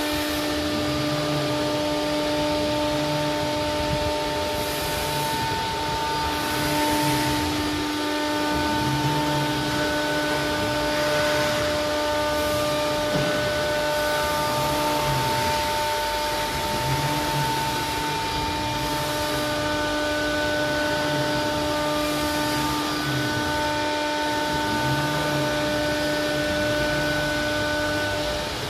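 CNC router's spindle running with a steady high whine and its overtones, while the gantry drive motors hum in short repeated runs as the head travels over an empty table, so no cutting is heard. A few short hisses come through, and the whine stops just before the end.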